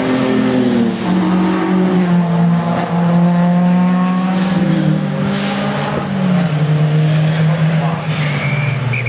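Racing saloon car engines running hard, their pitch stepping down a few times as the cars lift and change gear through the corners. A brief, steady high-pitched squeal comes in near the end.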